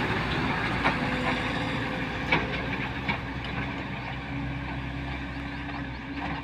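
Truck engine running: a steady low hum that slowly grows quieter, with a few faint clicks.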